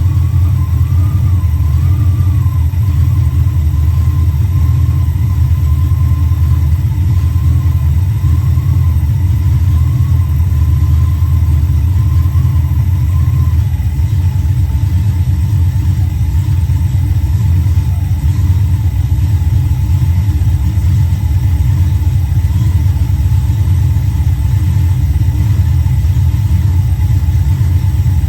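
Mopar 340 small-block V8 running steadily at a low, even speed, with a faint high whine that wavers and drops slightly in pitch about halfway through.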